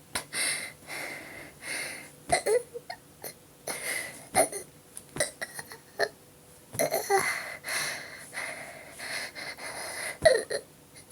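A woman breathing hard and wheezing, with short throaty sounds and sharp taps scattered through, as her belly is patted to bring up burps from carbonated water.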